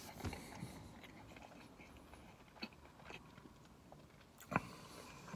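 Faint, sparse mouth sounds: soft lip smacks and tongue clicks of slow chewing, with one louder smack about four and a half seconds in.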